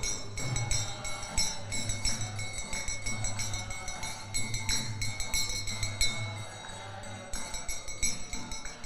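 Karatals (small hand cymbals) clinking and ringing in light, irregular strikes over a steady low hum.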